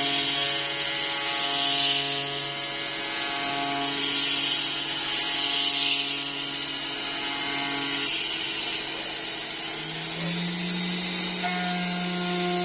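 Home-built CNC milling machine cutting an aluminium part: a steady multi-tone machine whine with a cutting hiss that swells and fades every couple of seconds. The whine changes pitch about eight seconds in and again near ten seconds.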